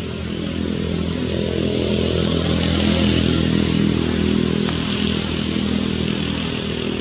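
A motor vehicle's engine running steadily with a high hiss over it, swelling to its loudest about three seconds in and then easing off.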